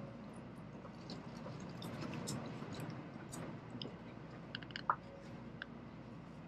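Cabin of a Shinkansen standing at a station: a steady low hum with scattered faint clicks and ticks, one sharper click about five seconds in.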